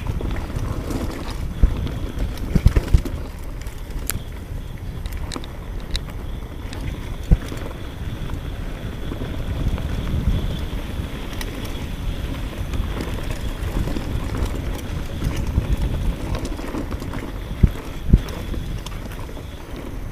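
Orbea Alma hardtail mountain bike ridden over a bumpy dirt and grass trail: a steady rumble of tyres and wind on the microphone, with sharp knocks and rattles from the bike as it hits bumps, clustered a couple of seconds in, once in the middle and twice near the end.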